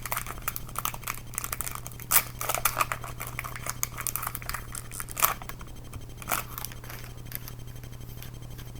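Foil Pokémon booster pack being torn open and handled: irregular crinkling and crackling with a few sharper rips, the loudest about two and five seconds in, quieting near the end.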